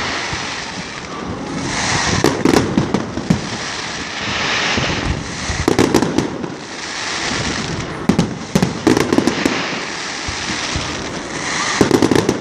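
Fireworks display: shells bursting in clusters of sharp bangs every two to three seconds, with a hissing crackle between the bursts.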